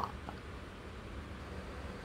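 A picture-book page being turned by hand, a faint papery rustle over a steady low room hum.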